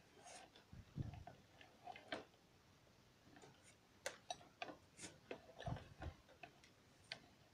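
Faint, irregular clicks and a few soft knocks from a metal cable reel being turned and handled with extension cable wound on its drum.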